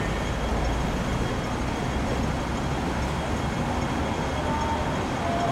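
Steady rumble of vehicle traffic or a vehicle in motion: a continuous low, even noise with no distinct events.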